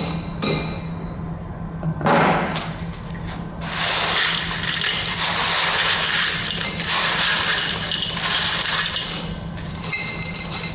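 A last tamping-rod stroke in a steel mould and a knock about two seconds in, then crushed 10 mm stone aggregate poured from a steel pan into a steel cylinder mould: a dense rattle of stones from about four seconds to about nine seconds in.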